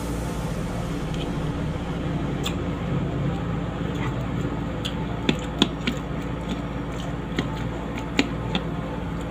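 Someone chewing and sucking santol fruit pulp: scattered short wet mouth clicks and smacks, about eight over a few seconds, over a steady background hum.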